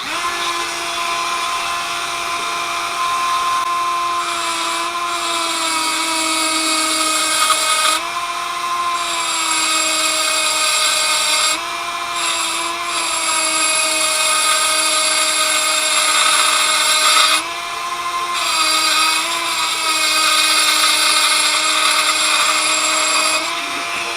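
A small high-speed power tool with a cutting or grinding bit running steadily as it cuts a groove into the steel of a vise pin or its bore. Its whine sags in pitch each time the bit is pressed into the metal under load, with a few short dips along the way.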